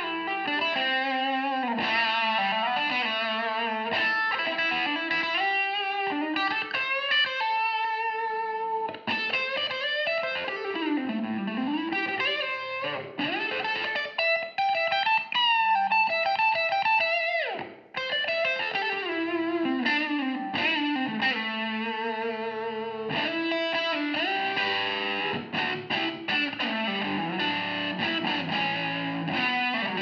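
Electric guitar, a 1957 Gibson Les Paul Special, played through a Hooks "Space Heater" amplifier: single-note lead lines with wavy vibrato and pitch glides that sweep down and back up. There is a brief break a little past halfway.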